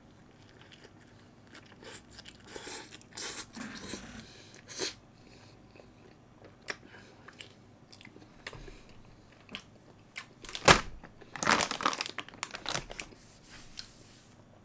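Close-up biting and chewing of a salmon burger, in two spells of crunching: about two to five seconds in, and again from about ten and a half to thirteen seconds in. The loudest sound is a sharp crunch at the start of the second spell.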